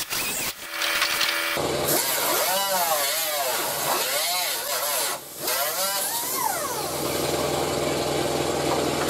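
Die grinder with a cut-off wheel cutting a fiberglass bumper flange. Its whine repeatedly dips and climbs back in pitch as the wheel bites into the fiberglass and eases off. A steady low hum comes in about a second and a half in and runs underneath.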